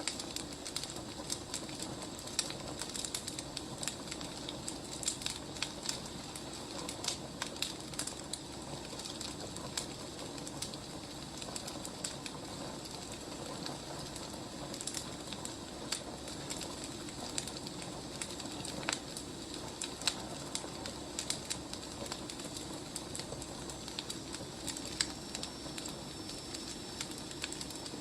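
Wood fire crackling, with irregular sharp pops and snaps over a steady low hiss of the burning logs.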